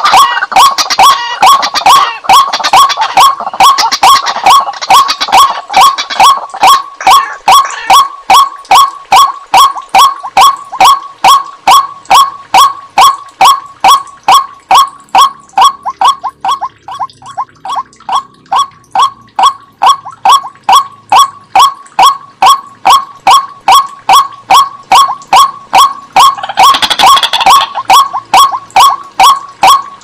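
White-breasted waterhen (ruak-ruak) calling, loud, monotonous notes repeated about two or three times a second. A second, overlapping bout of busier calls joins in over the first several seconds and again about four seconds before the end.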